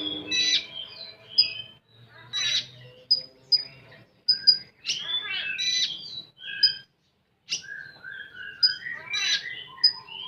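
Konin songbird singing a fast string of sharp whistled notes, chirps, sweeps and trills, with a brief pause about seven seconds in.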